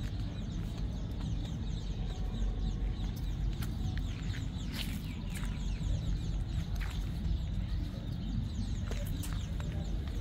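Outdoor ambience: birds chirping, with short high calls scattered all through, over a steady low rumble, with a few light clicks.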